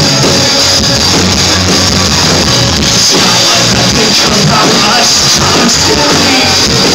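Live rock band playing loudly and continuously, heard from the audience at a concert.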